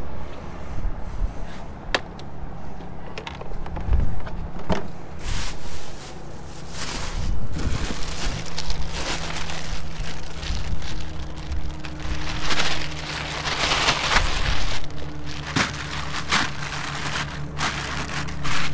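Wind rumbling on the microphone, with handling noise: sharp knocks and bouts of crinkly rustling, loudest about two thirds of the way through, as plastic bags and ice in a cooler are handled. A low steady hum comes in about halfway.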